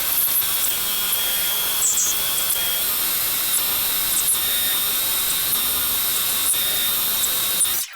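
Steady, high-pitched noise of a power machine tool working on metal, with a thin whine held through it; it cuts off suddenly near the end.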